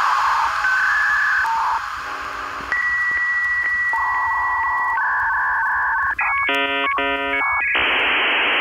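Electronic beeps and held tones at changing pitches, like telephone or modem signals. Near the end they turn into a burst of rapid stacked tones, followed by a steady static hiss.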